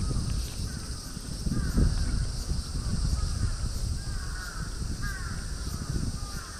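A cat licking lickable paste treat from a squeeze tube, with uneven wet smacking and lapping. Short high squeaks repeat through it, roughly once or twice a second.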